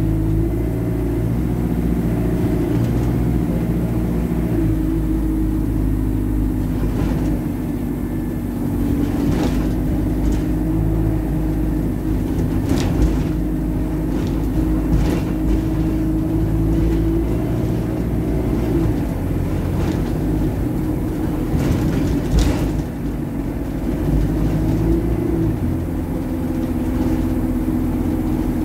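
Alexander Dennis Enviro400 bus driving along, its engine drone shifting pitch a few times as it changes speed. Sharp rattles and knocks break through every few seconds; the bus is an absolute rattlebox.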